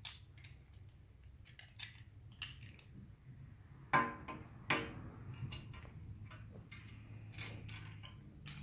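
Plastic Lego bricks being handled and pressed together: scattered clicks and clacks, the sharpest about four seconds in and another just before five seconds, over a low steady hum.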